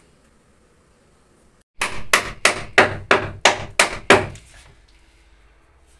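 Hammer blows during work on a new ceiling: about eight sharp strikes in quick succession, roughly three a second, starting about two seconds in.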